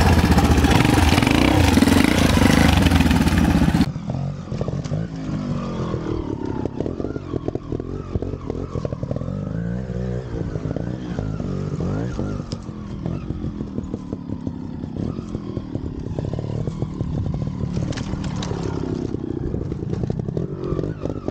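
Trials motorcycle engine running and being revved up and down in short throttle blips, with a few sharp knocks and clatter. It is loud and close for about four seconds, then cuts abruptly to a quieter, more distant engine.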